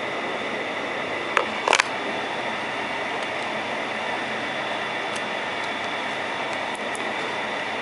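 Steady whirring hiss of a fan running, with a couple of short sharp clicks about a second and a half in.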